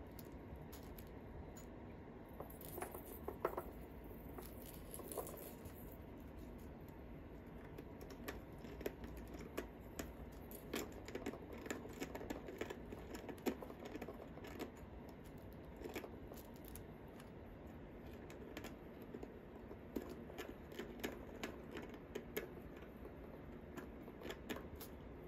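Faint, scattered clicks, taps and scratches of Persian kittens pawing at and scrambling over toys on a fabric play mat.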